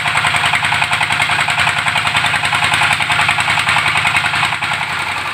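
Small stationary diesel engine of a well-drilling rig running steadily, with a rapid, even chugging.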